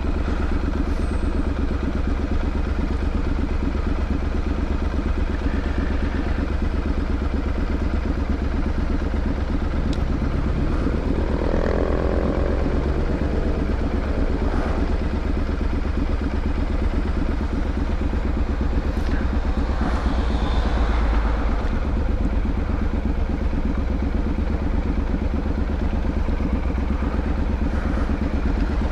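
Triumph Street Scrambler 900's parallel-twin engine running steadily as the motorcycle is ridden, at an even level throughout with a deep low rumble underneath.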